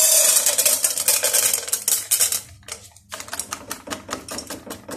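Popcorn kernels poured from a packet into a stainless steel saucepan, rattling onto the metal in a dense stream for about two and a half seconds, then after a short pause a sparser patter of single kernels as the last ones are shaken out.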